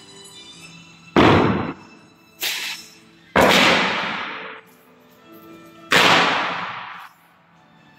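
Kung fu fan snapped open with its cloth, four sharp cracks, the second fainter, each trailing off over about a second.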